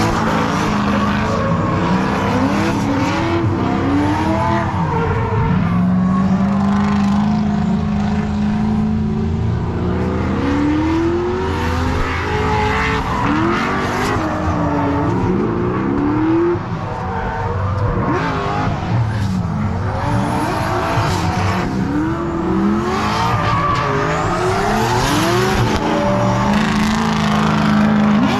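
Drift cars' engines revving up and down as they slide, with tyres squealing and a constant hiss of tyre noise, the pitch of the engines rising and falling again and again.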